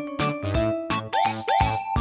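Upbeat electronic background music with a steady drum beat, and two rising synth swoops near the end.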